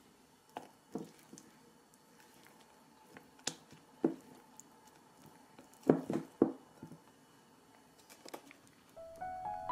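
Silicone spatula stirring and folding thick dark chocolate ganache in a glass bowl: scattered soft squelches and scrapes against the glass, the loudest a quick cluster about six seconds in. Soft piano music comes in near the end.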